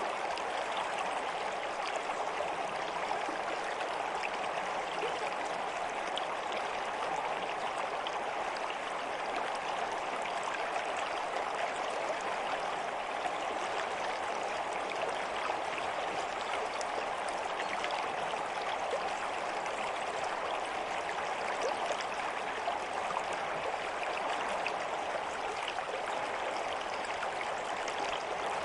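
Stream water running steadily, an even rushing sound with small splashes and trickles through it.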